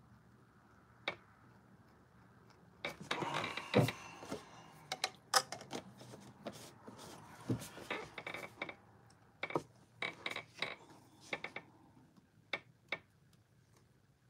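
Handling noise from a small stretched canvas and paintbrush being worked on a tabletop: scattered clicks and taps with rustling, busiest through the middle.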